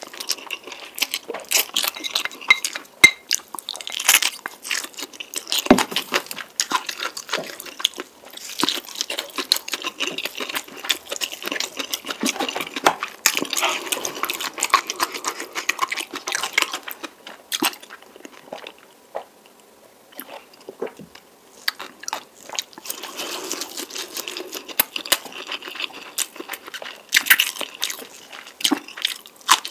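Close-miked eating of spicy noodles: steady chewing with wet, crackly mouth sounds, easing off briefly about two-thirds of the way through.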